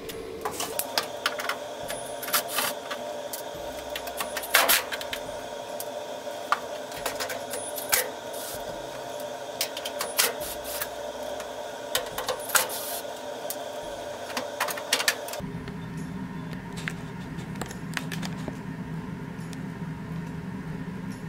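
Screwdriver work on the washer's metal rear panel as its Torx screws come out: frequent sharp clicks and taps over a steady hum. About fifteen seconds in, the hum changes to a lower one and the clicks become sparse.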